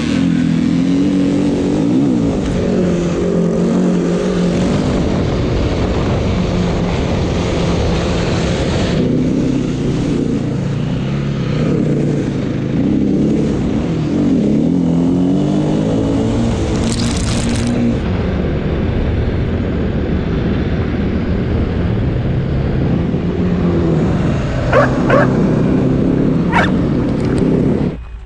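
Snowbike's motorcycle engine running hard, revving up and down continuously as it is ridden. Near the end there are a few short, sharp high-pitched sounds.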